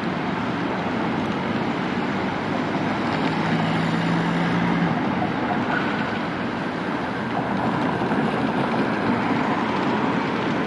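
Steady city-street traffic noise as a Moderus Beta low-floor tram approaches along the street tracks. A low steady hum comes in for about two seconds in the middle.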